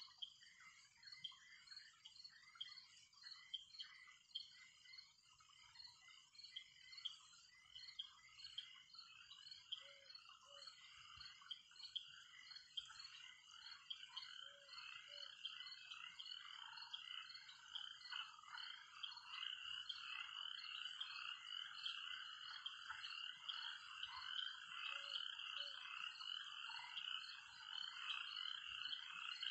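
Faint chorus of frogs croaking in a rapid, pulsing rhythm that grows a little louder. A low two-note call sounds three times over it.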